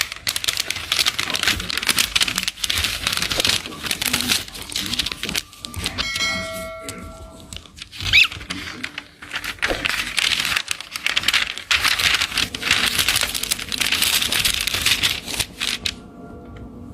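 Paper rustling, crinkling and tearing in repeated bursts as a lovebird's cage papers are changed, with a single bird chirp about eight seconds in and a short ringing chime-like tone around six seconds.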